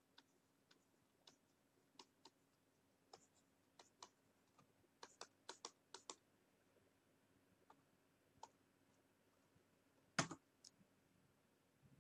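Faint, scattered clicks of a computer mouse and keyboard, with a quick run of clicks about five to six seconds in and one louder knock just after ten seconds.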